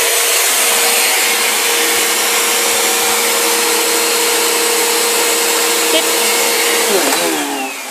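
Vacuum cleaner running steadily with a constant whine, then switched off near the end, its motor winding down with a falling pitch.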